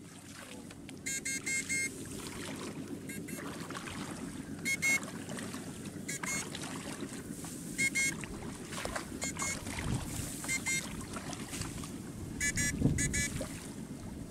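Backpack electrofishing rig pulsing current into a flooded rice paddy through its pole electrodes: short bursts of electric buzzing, about ten of them at irregular intervals of one to two seconds, over a low steady background noise.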